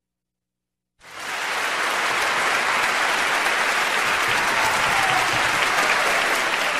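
Crowd applause, many hands clapping, starting about a second in and holding steady.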